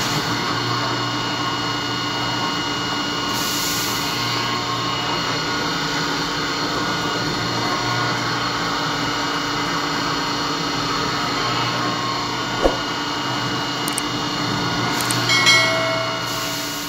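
CNC machining centre milling a keyway into a steel motor-rotor shaft with an end mill under flood coolant. The machine runs steadily, with several steady tones over a hiss of spindle and coolant spray, and there is one sharp click a little before the end.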